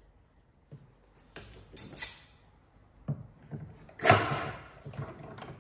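Timber and a clamp being shifted on a wooden workbench: scraping slides, then a few knocks, the loudest a sharp knock about four seconds in.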